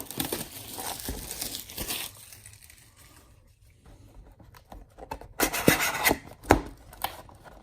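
The wrapping of a sealed trading-card hobby box crinkling and tearing as the box is opened, then a few sharp knocks and taps near the end.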